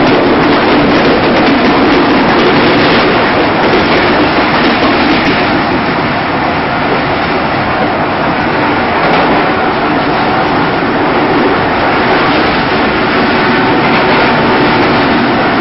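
Passenger train coach running at high speed, heard from inside at its doorway: a loud, steady rumble of the wheels on the rails.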